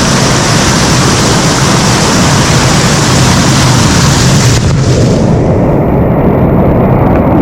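Rushing water of a mountain stream cascade, very close to the microphone, with a heavy low rumble. About four and a half seconds in, the sound turns muffled, as if the microphone is covered or dips into the water.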